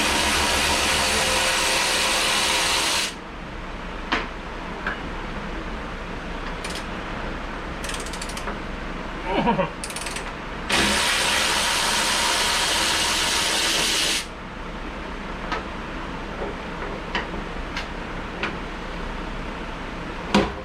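A handheld power tool's motor runs in two steady bursts of about three and a half seconds each, about ten seconds apart, backing out the door bolts. Between the runs come light clicks and knocks of the tool and parts, over a steady fan hum.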